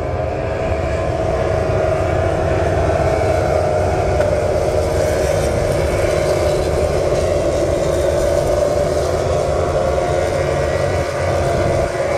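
Engines of a group of MotoGP racing motorcycles, 1000 cc four-cylinder four-strokes, running together after the race finish as a steady drone whose pitch slowly drifts, with a slight dip near the end.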